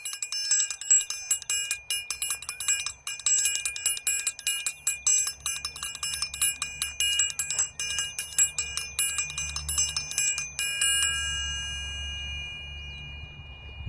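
A small high-pitched metal bell struck rapidly over and over. About three quarters of the way through the strikes stop and the bell is left ringing, slowly fading. A low hum beneath it grows louder in the second half.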